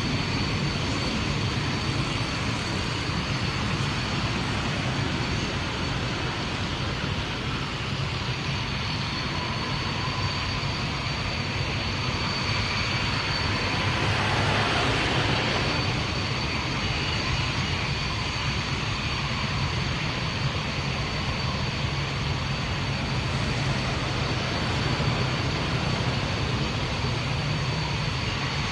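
Distant jet aircraft: a steady rumbling roar that swells and fades again about halfway through, with a thin steady high-pitched whine alongside.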